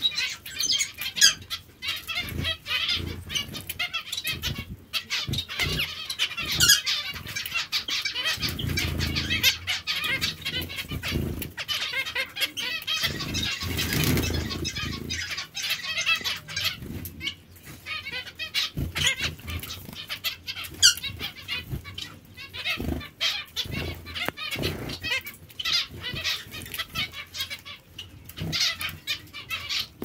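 Zebra finches bathing and drinking at a metal water bowl: irregular small splashes and quick wing fluttering, with the birds' chirping calls running through.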